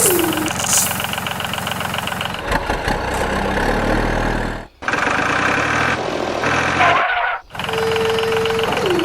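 Tractor-style engine idling with a rough knocking beat, cut off abruptly twice, with a short tone sliding down in pitch near the end.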